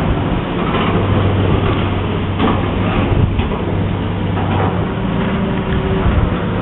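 Steady low drone of heavy machinery engines running, with wind noise rumbling on the microphone.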